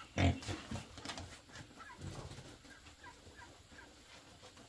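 Young pigs grunting and snuffling as they feed at a trough, with a cluster of loud grunts in the first second. Short high chirps repeat faintly through the rest.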